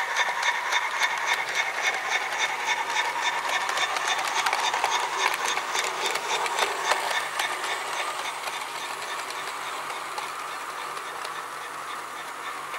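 Model train running on garden track close by: wheels clicking quickly and rhythmically over the rail joints over a steady motor whine. The clicking thins out and the sound drops a little after about seven seconds.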